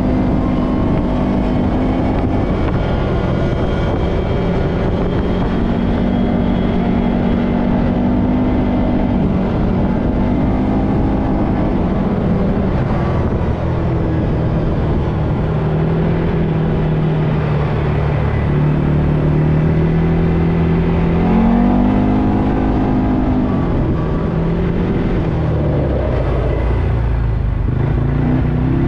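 Four-wheeler (ATV) engine running as it cruises down a paved street, heard from on board with wind and road rumble. The engine note holds fairly steady with slow small shifts in pitch, rising briefly about three-quarters of the way through before dropping back.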